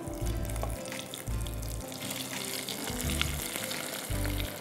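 Hot oil sizzling steadily as breaded potato-and-coconut patties deep-fry in a saucepan, the hiss growing stronger about halfway through, over background music.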